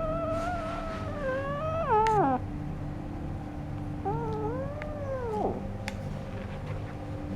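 A cat giving two long, drawn-out meows: the first trails off with a falling pitch about two seconds in, and the second starts about four seconds in, rising and then falling over a second and a half.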